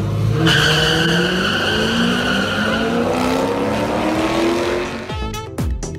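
Two drag-racing cars launching side by side and accelerating hard down the strip, their engines climbing steadily in pitch, with a high squeal over them. About five seconds in this cuts off abruptly into the start of a music intro.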